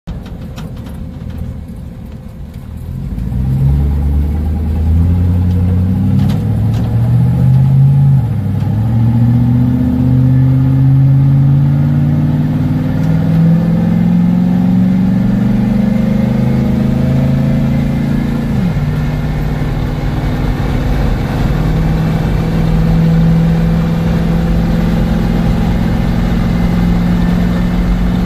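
Chevy 4.8 L V8, exhausting through a catalytic converter on each side into a 2-into-1 with no muffler, pulling hard from about three seconds in. Its pitch climbs and drops back twice as it shifts up through the gears, then it runs steadily at cruising speed, heard from inside the cab.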